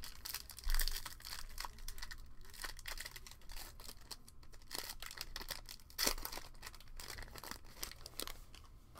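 Crinkling and tearing of a trading-card pack's foil wrapper being ripped open by hand, crackling throughout, with two louder rips about a second in and about six seconds in.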